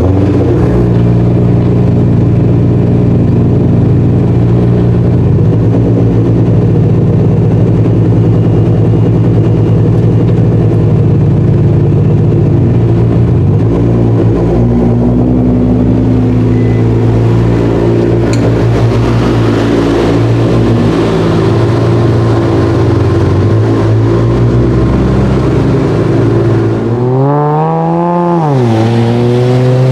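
Nissan GT-R engine running loud and steady at an even pitch, then revved sharply up and back down near the end, and climbing in pitch again as it pulls away.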